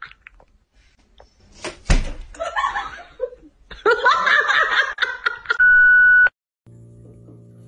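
A sharp knock about two seconds in, then a person snickering and laughing in short broken bursts, cut off by a short, loud, steady beep; quiet music starts near the end.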